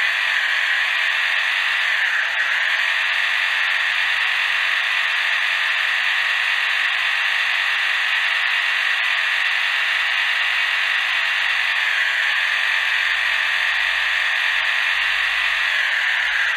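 Stock electric motor and gearbox of a 1:32 Orlandoo Hunter OH32P02 RC crawler whining steadily as it drives. The pitch dips briefly about two seconds in, again around twelve seconds, and just before the end.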